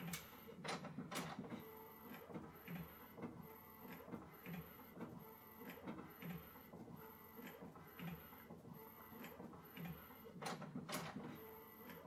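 Epson EcoTank ET-8550 inkjet photo printer printing, very quiet. It repeats a regular low mechanical pattern about once a second as the printhead makes its passes, with a few sharp clicks in the first second and again near the end.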